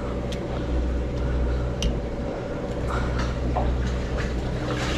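Boat engine running with a steady low hum, over a hiss of water, with a few light clicks.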